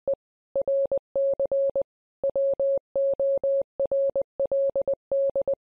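A steady single-pitch electronic beep tone keyed on and off in an uneven run of short and long beeps, in the manner of Morse code, stopping at the end.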